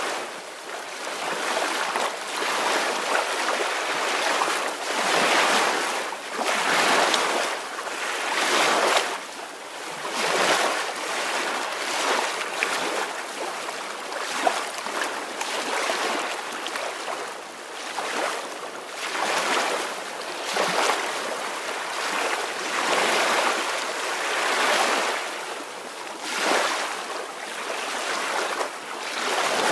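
Small ocean waves washing onto a shore, a steady hiss that swells and ebbs every two seconds or so as each wave breaks and runs back.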